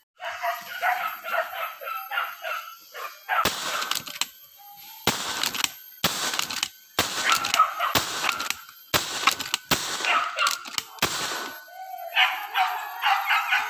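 Hunting dogs yelping and barking in quick runs of several calls a second on a wild pig hunt. Between the runs come loud, noisy stretches of rustling brush, each about a second long.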